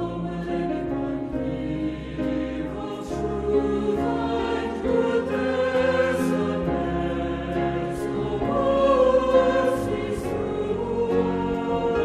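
A group of voices singing a hymn with instrumental accompaniment, swelling a little louder about nine seconds in.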